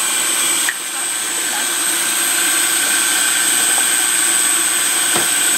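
Electric kitchen mixer (food processor) motor running steadily, mixing the yellow cake batter, with a constant high whine; the sound dips briefly just under a second in.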